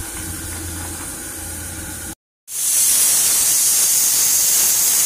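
A low steady hum for about two seconds, then, after a brief break, a louder steady hiss of steam from a propane-fired live-steam locomotive.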